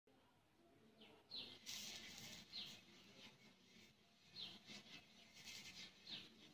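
Faint bird chirping: about five short, falling chirps spaced a second or two apart, over a soft hiss.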